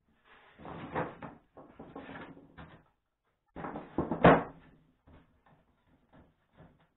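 Wooden roof panels of a hand-built wishing well being lifted and fitted onto one another: wood scraping and knocking on wood. The sharpest knock comes about four seconds in as the tier is set down, followed by a few light taps.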